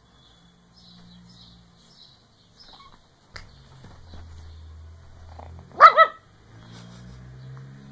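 Pug puppy barking twice in quick succession, two short high yaps close together about three-quarters of the way through.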